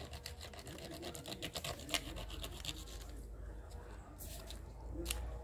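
Rapid scratching and scraping strokes, dense for the first two seconds, then a pause and two sharper scrapes near the end: a hand tool working through the wax honey pots of a jataí stingless bee nest.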